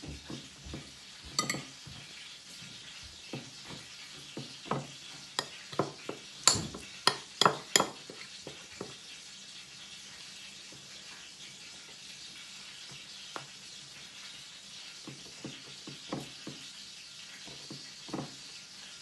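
A metal spoon clinking and scraping against a ceramic bowl and plate while garlic butter is scooped up and spread on bread. A run of sharp clinks comes about six to eight seconds in, and scattered softer taps follow near the end.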